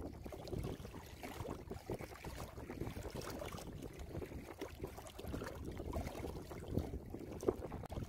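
Small waves lapping and sloshing irregularly against shore rocks and ice-coated reeds at the water's edge, with a sharper splash near the end.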